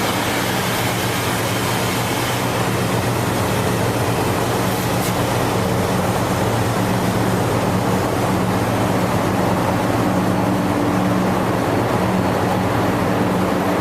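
Steady machinery running: a continuous low hum under an even rush of noise, with no change throughout.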